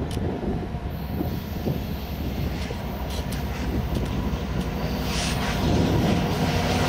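EMD F59PHI diesel-electric locomotive running as it approaches at the head of a passenger train, a steady engine drone that grows louder about five seconds in.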